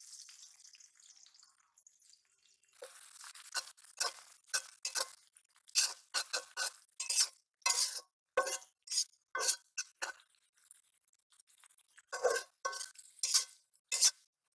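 Metal spatula stirring sliced onions and green chilies in a metal karahi, scraping and striking against the pan in a run of sharp, irregular clinks. A soft sizzle comes first as the onions go into the hot oil.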